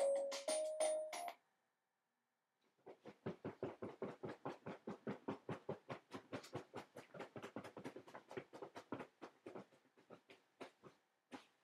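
The song's last chiming notes end about a second in. After a short silence, a bed creaks in a fast, even rhythm of about four squeaks a second as the people under the duvet move, slowing and fading near the end.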